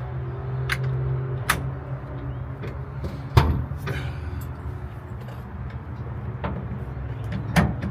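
A steady low hum, with a few sharp clanks of hand tools (sockets, extension, ratchet) being handled against metal; the loudest clanks come about three and a half seconds in and near the end.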